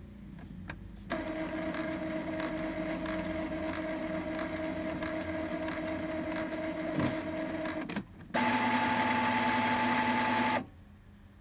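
Epson L3150 ink-tank printer's internal motor running during a power cleaning cycle. It runs steadily for about seven seconds with a faint regular ticking, pauses briefly, then runs louder and higher-pitched for about two seconds and stops abruptly.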